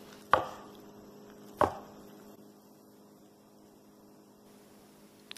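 A cleaver knocking twice on a bamboo cutting board, about a second and a half apart, as it cuts through a sheet of fresh rice noodles. A faint steady hum lies underneath.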